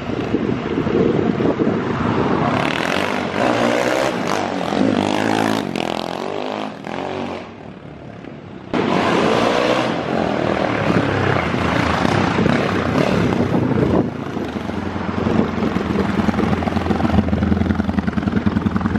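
Honda Today motorcycle with its engine built up to 370 cc, revving up and down as it is ridden along the street, then pulling up close and idling with a steady beat near the end.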